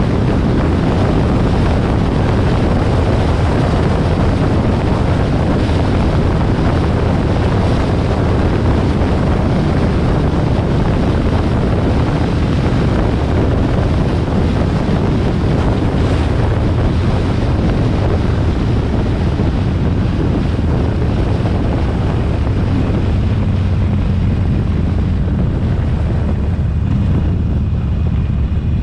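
Wind rushing over the microphone of a moving motorcycle, over the low steady rumble of a Harley-Davidson XL1200R Sportster's air-cooled 1200 cc V-twin. In the last few seconds the wind eases and the engine's low note comes through more plainly.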